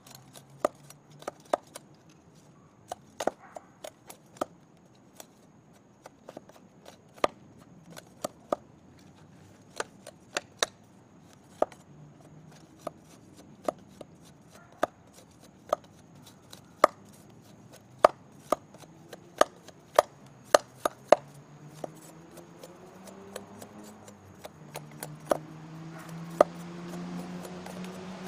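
Elk Ridge parang machete chopping into a wooden stick braced against a log, sharp irregular chops one or two a second, splitting off long shavings. A low hum grows louder near the end.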